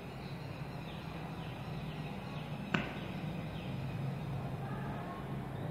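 Steady background hiss with a low hum, broken by a single sharp click near the middle.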